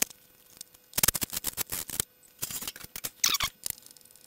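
Clusters of sharp clicks and short scrapes from small plastic parts being handled: the VCR mechanism's plastic motor housing, with its worm-gear motor, being fitted back onto the tape deck. A single click comes at the start, then bursts about a second in, around two and a half seconds and around three and a half seconds.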